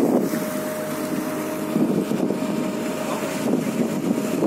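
Fishing boat engine running steadily at sea, with one constant tone over the drone, mixed with rough waves splashing against the hull and gusting wind buffeting the microphone.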